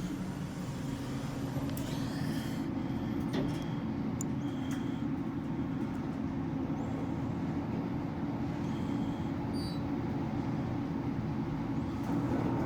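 Kone elevator cab travelling between floors: a steady low hum and rumble of the moving cab, with a few faint short high tones.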